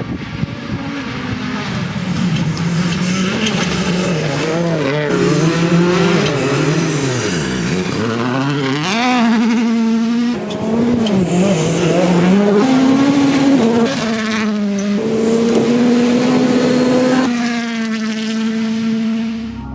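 Hyundai i20 Coupe WRC rally car's turbocharged 1.6-litre four-cylinder engine running hard and loud, its pitch rising and falling again and again with several sudden steps as the car is driven at speed.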